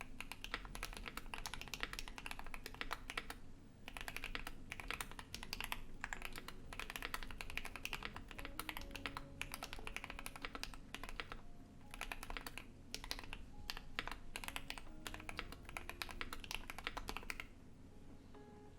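Fast, steady typing on a Keychron Q1 mechanical keyboard with lubed and filmed JWK Alpaca linear switches, a polycarbonate plate and ABS keycaps, with added reverb. The typing stops about a second before the end, leaving soft music and a low background hum.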